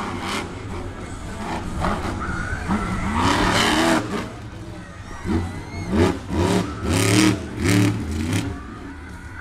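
Monster truck engine revving hard as the truck climbs over a stack of crushed cars, then blipping up and down in about five quick bursts.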